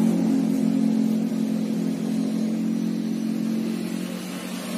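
A motor running with a steady low hum that eases off slightly over a few seconds.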